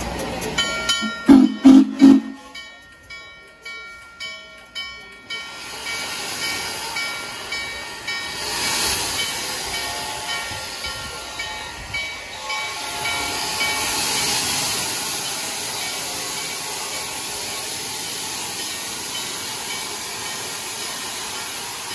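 Steam locomotive: a few short, loud whistle blasts about a second in, then ringing strokes about twice a second. From about five seconds in there is a steady steam hiss with pulsing exhaust surges that level off to an even hiss.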